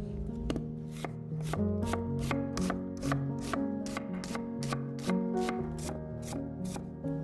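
Chef's knife slicing an onion into thin strips on a wooden cutting board: a steady run of crisp knocks on the board, about four a second. Soft background music underneath.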